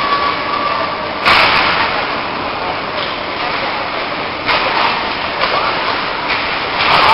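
Ice hockey play: skate blades scraping and carving the ice with sticks and puck clattering, and sudden louder scrapes about a second in, midway and near the end.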